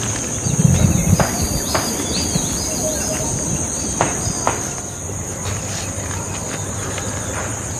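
Steady high-pitched insect chorus, with a few short bird chirps in the middle and some low thumps and clicks in the first second or so.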